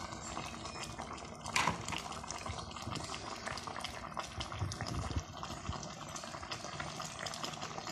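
Asam pedas fish curry simmering in a pan: the sauce bubbles with a steady crackle of small popping bubbles. One louder burst comes about a second and a half in.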